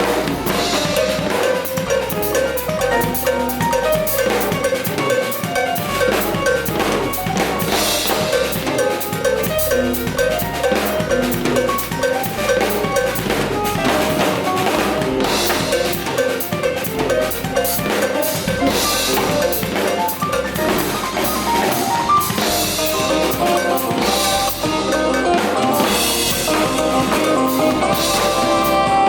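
Drum kit played along with band music. Steady kick and snare hits sit under repeating pitched notes, with a cymbal crash every few seconds.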